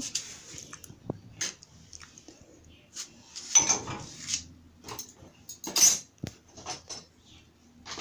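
Glasses and small dishes clinking and knocking against a dishwasher's wire rack as it is loaded by hand: scattered clinks and short clatters, the loudest about three and a half and six seconds in.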